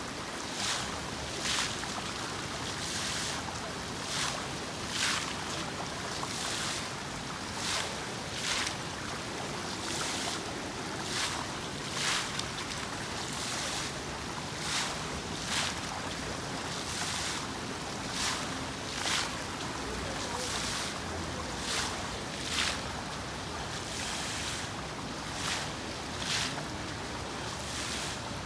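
Water fountain running: a steady rush of falling water with louder splashing surges about once a second, unevenly spaced.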